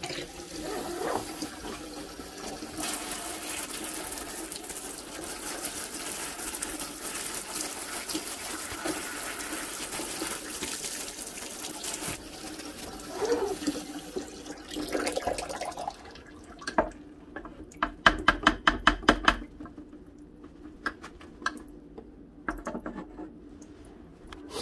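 Kitchen faucet running water over a wire smoking rack in the sink, with some splashing. The water stops about 15 seconds in. A few seconds later comes a quick run of about eight sharp metal clacks as the wire rack is handled and knocks against things.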